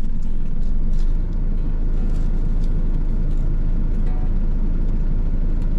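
Truck engine idling, heard from inside the cab as a steady low rumble. A few light clicks from chopsticks and the plastic food container ride over it.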